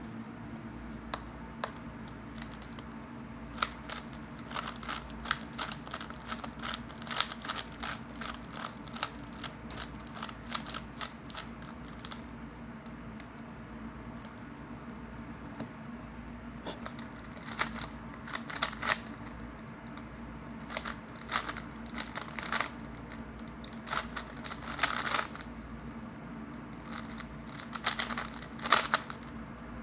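Plastic 3x3 speedcube being turned quickly, its layers clicking in rapid runs of turns, with a short lull of only a few clicks about halfway through.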